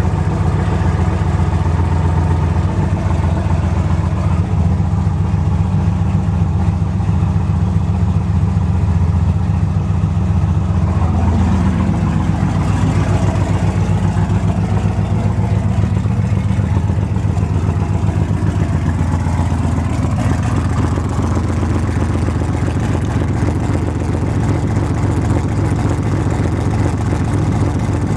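Pickup truck engine running steadily, freshly fitted with new lifters after a lifter tick.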